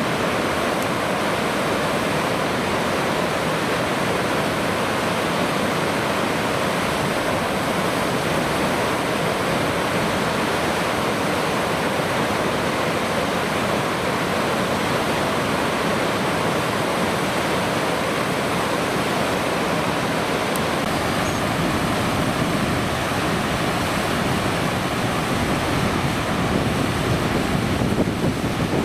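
Steady rush of flowing water, an even noise with no breaks. Near the end, wind buffets the microphone and the low rumble swells.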